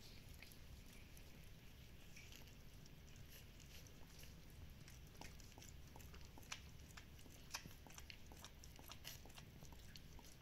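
A Shiba Inu mother licking her newborn puppies: faint, irregular wet licking and smacking, with a couple of sharper clicks a little past the middle.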